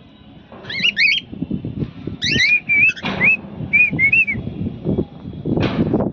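Cockatiel whistling: short looping, rising-and-falling notes, a quick cluster about a second in, then a run of several notes from about two to four seconds. Wind buffets the microphone throughout, loudest near the end.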